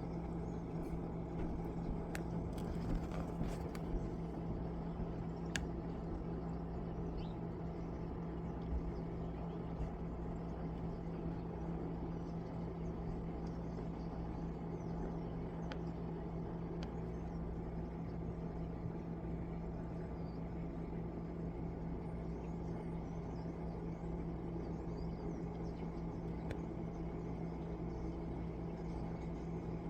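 Steady low mechanical hum with a constant low drone tone, unchanging throughout, like a running motor.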